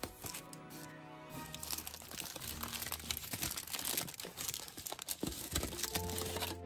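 Aluminium foil wrapper crinkling and crackling as it is peeled off a chocolate bunny, over soft background music.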